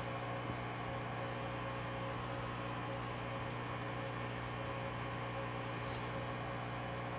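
Steady electrical hum with a row of evenly spaced overtones and a faint hiss, unchanging in level throughout.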